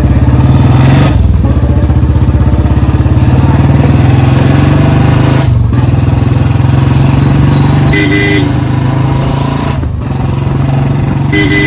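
Royal Enfield Bullet Standard 350 single-cylinder engine running under way through a free-flow bend pipe and short bottle silencer. Its loud, fast exhaust beat drops out briefly three times as the throttle is let off. The exhaust header joint is freshly sealed with a new gasket ring, so the throttle-off popping from an air leak is gone. A short horn beep sounds twice in the second half.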